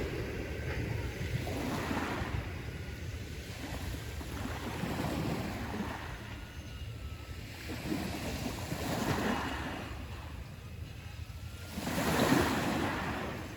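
Sea surf: waves breaking and washing up the shore in swells every few seconds, the loudest one near the end, over a steady low rumble of wind on the microphone.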